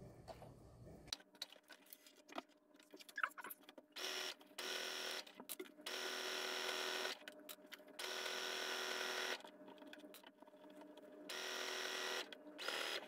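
Baby Lock sewing machine stitching in short stop-start runs, about six in all, each lasting under a second to about a second and a half, with small clicks between runs.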